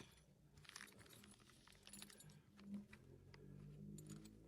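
Faint, light clicks and small metallic jingles of little hardware parts being handled, over a quiet room.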